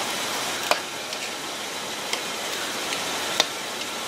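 Steady outdoor hiss with a few sharp clicks, about three in four seconds, as a tire on its rim is handled on concrete.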